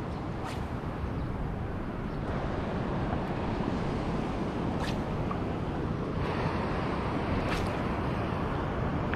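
Wind buffeting the microphone over surf washing on the shore: a steady rushing, with three short, sharp ticks spread through it.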